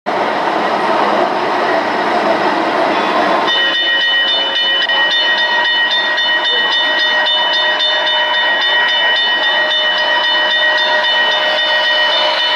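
Sound-equipped model train locomotive running: a noisy rushing sound for the first few seconds, then a steady whistle of several pitches that starts about three and a half seconds in and is held to the end.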